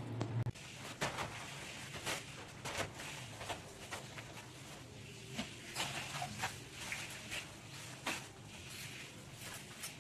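Irregular light knocks, clicks and scrapes of household things being handled and set down during floor cleaning. A low hum stops suddenly about half a second in.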